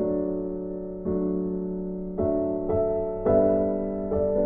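Slow background piano music: sustained chords, a new one struck about once a second, each fading before the next.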